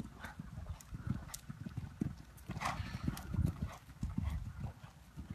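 Hoofbeats of a Sella Italiano horse cantering under a rider on a sand arena: a steady run of low thuds.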